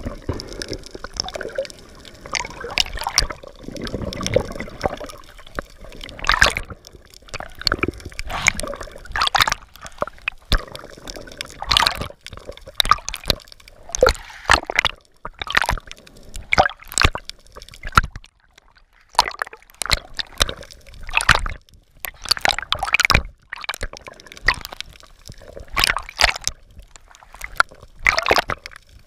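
Water splashing and gurgling around a swimmer's handheld action camera as it moves underwater and through the surface, in irregular sharp splashes about one or two a second.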